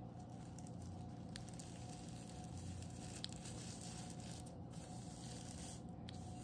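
Quiet room tone with a steady low hum and a few faint, short clicks.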